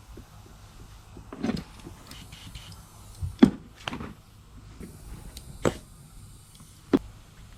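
About six separate knocks and clicks of hard parts and tools being handled during motorcycle brake caliper work, the loudest about three and a half seconds in.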